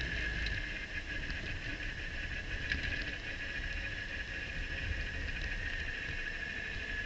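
Radical SR3 race car coasting with its engine just switched off: low tyre and road rumble, a steady high whine and a few faint ticks.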